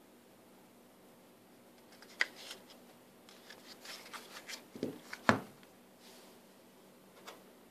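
Plastic washing-machine drain pump motor being handled and turned over in the hand, with scattered light clicks and rubbing of its housing. About five seconds in it is set down on the table with a low knock and a sharp click, the loudest sound.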